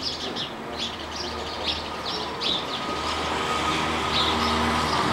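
Small birds chirping repeatedly in short, quick, downward-sliding notes, several a second, over a steady low hum that grows a little louder from about three seconds in.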